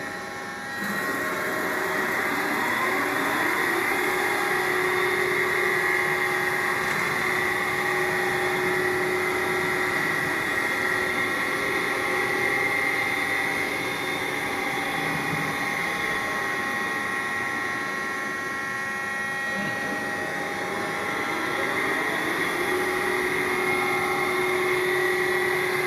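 Cyclone FB 26120 CNC lathe running, its spindle drive giving a steady whine made of several tones. The pitch climbs a second or two in as the spindle speeds up, holds, sags a little about three-quarters of the way through, then climbs again near the end.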